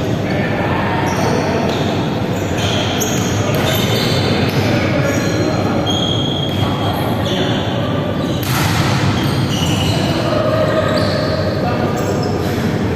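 Indoor volleyball play in a large echoing hall: sneakers squeaking on the wooden court, the ball being hit with sharp smacks, and players calling out.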